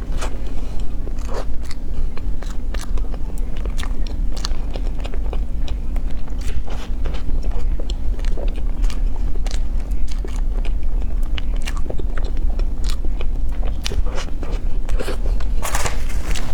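Close-miked chewing and biting: many short crunchy clicks and mouth noises, thickening into a cluster near the end, over a steady low hum.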